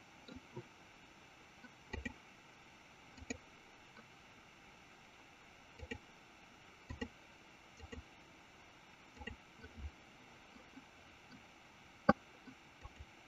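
Scattered clicks of a computer mouse, several in quick pairs, over a faint steady hiss, with one sharper, louder click near the end.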